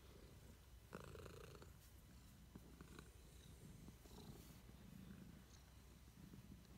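Domestic cat purring steadily while being stroked, with a short louder noise about a second in.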